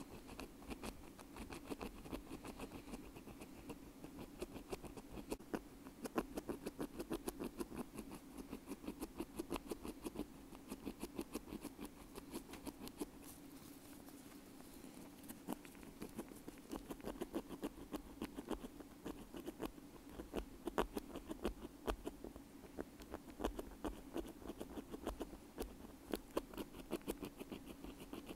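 Bamboo ear pick scratching quickly against a wired earbud: a dense, continuous run of small scratchy clicks that thins out for a few seconds about halfway through.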